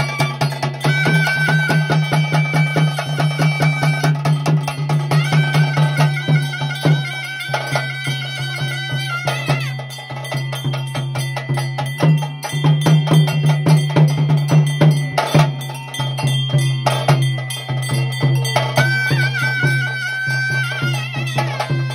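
Live traditional ritual music: a wind instrument playing long held melody notes with slides over a steady low drone, against fast, dense drumming.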